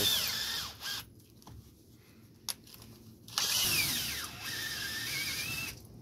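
Cordless drill boring out the inside of a motorcycle handlebar end, the bit cutting easily into the metal. A first run winds down within the first second, a single click follows after a pause, and a second steady run of about two and a half seconds stops shortly before the end.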